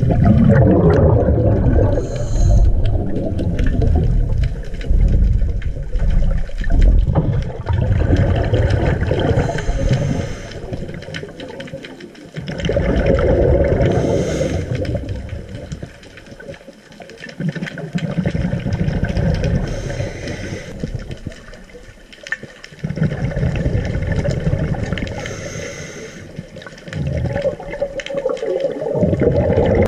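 Scuba diver breathing through a regulator, heard underwater: repeated loud gurgling rushes of exhaled bubbles, each lasting a few seconds, with short quieter gaps between breaths.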